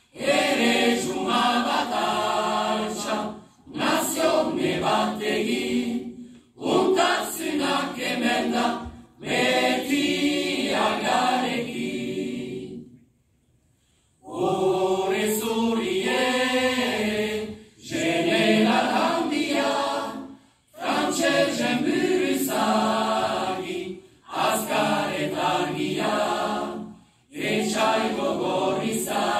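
Choir singing unaccompanied in Basque, in phrases of two to three seconds with short breaths between them and one longer pause about halfway through.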